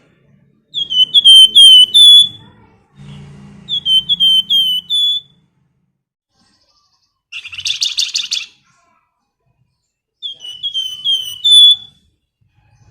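Flamboyan songbird singing: three phrases of four or five quick, down-slurred whistled notes, with a short buzzy rattle about eight seconds in.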